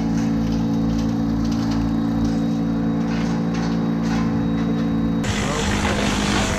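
A gas chainsaw running steadily at low speed, then throttled up into a cut about five seconds in, turning into a rough, noisy sound.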